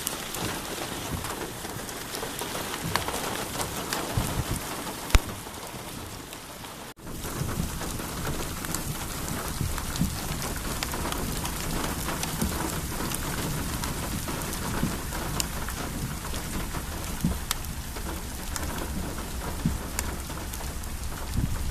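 Rain falling steadily, with many sharp drop impacts close by. The sound cuts out briefly about seven seconds in, then returns with more low rumble under it.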